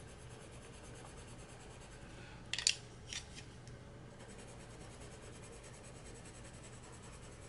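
Caran d'Ache Luminance colored pencil shading on paper: a faint steady scratch of the pencil lead, with a few brief, louder scratches about two and a half to three seconds in.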